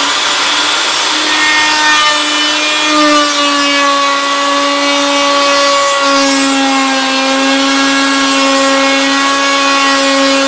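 Einhell TC-RO 1155 E 1100-watt plunge router running at a steady high whine while milling the end grain of a wooden board. Its pitch sags slightly a couple of times as the bit takes load.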